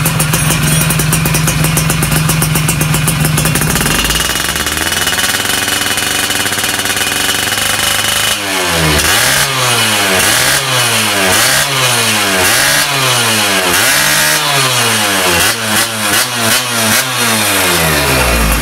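Two-stroke Yamaha F1ZR engine breathing through an aftermarket AHM plug-and-play exhaust. It idles, is held at higher revs for a few seconds, then is blipped up and down about once a second and drops back to idle near the end.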